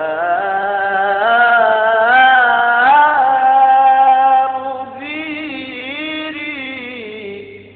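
Unaccompanied male voice singing a long, ornamented melismatic line of an Egyptian religious chant (ibtihal), held and sliding between pitches without words, fading out near the end.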